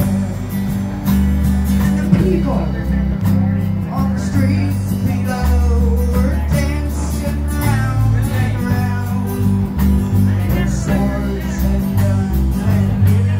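Live band music: strummed acoustic guitars over steady bass notes and drums, with a woman singing into the microphone.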